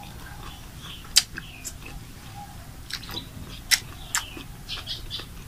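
A person chewing a big mouthful of leaf-wrapped miang with the mouth closed, with a few sharp clicks from the mouth, the loudest about a second in and just before four seconds in.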